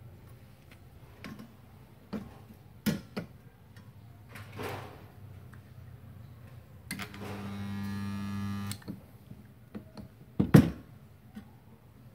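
Portable 2.5 kVA Multipro mini spot welder: a few clicks and clanks from its lever arm and the sheet steel, then a steady electrical buzz of about two seconds as the transformer fires a spot weld. A sharp clank about ten seconds in is the loudest sound.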